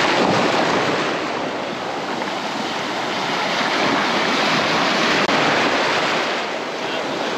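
Sea surf breaking and washing up the beach in a steady rush of noise, swelling and easing as the waves come in.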